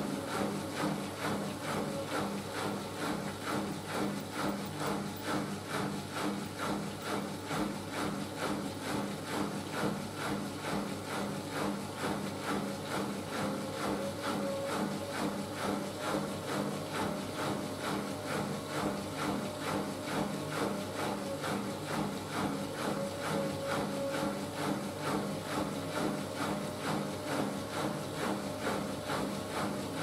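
Siemens Siwamat IQ 716 front-loading washing machine running near the end of its cycle, the drum turning the wet laundry. A steady hum with a regular pulse about twice a second, and a faint motor whine joining about halfway through.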